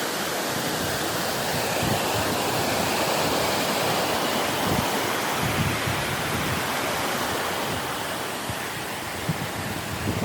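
Hebbe Falls waterfall, a steady, loud rush of falling water, with scattered low thumps of wind on the microphone.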